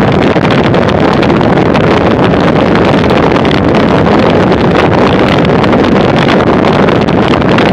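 Loud, steady wind rush buffeting the microphone of a bicycle-mounted camera moving at about 44 km/h.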